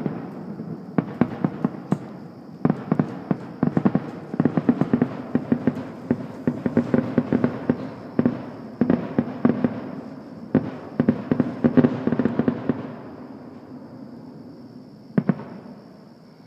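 Fireworks going off in a rapid barrage of sharp bangs and crackles that then thins out and fades to a rumble, with one last single bang near the end.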